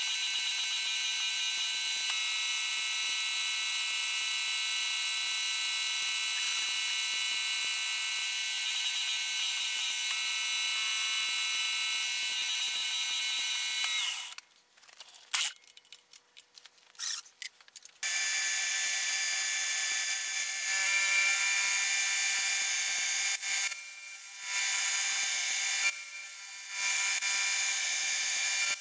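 Milling machine running with a steady high-pitched whine while an end mill cuts a metal block held in a vise. About 14 seconds in the machine stops for a few seconds, leaving only scattered clicks and knocks, then runs and cuts again.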